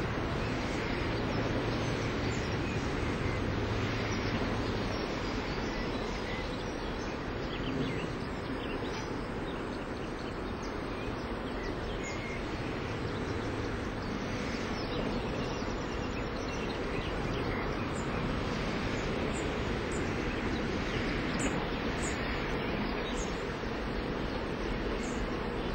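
Steady outdoor background rumble, with faint short high chirps of birds in the second half.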